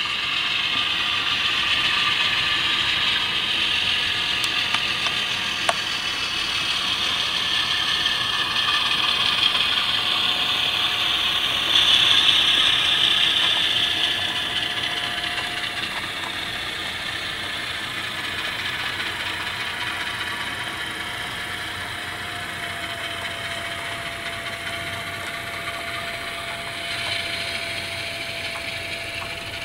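Kato HO-scale Alco C425 model diesel locomotive with a sound decoder running along the track, hauling cars: a steady mix of simulated diesel engine sound and the model's running mechanism. It is loudest about twelve seconds in, as the locomotive passes closest, then eases off, with a thin steady tone holding through the second half.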